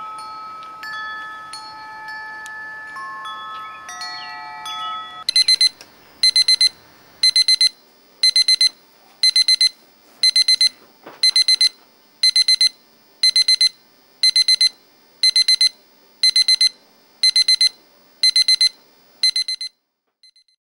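Soft chime-like music of long, held bell tones. About five seconds in it gives way to a digital alarm clock beeping: quick clusters of high beeps repeating about once a second, which stop shortly before the end.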